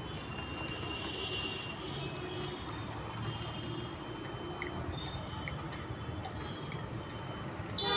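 Steady background noise of a busy street with faint, scattered light clicks.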